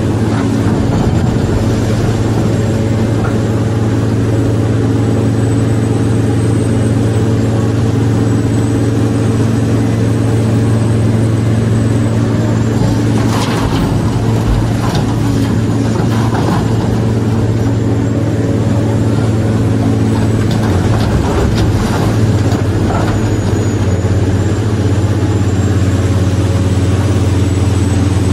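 Steady, deep engine drone like a heavy diesel idling, with a thin high whine above it. A few short clicks come around the middle.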